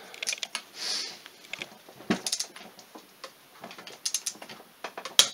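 Socket ratchet clicking in several short runs of quick clicks as the bolts holding the engine's case halves together are tightened.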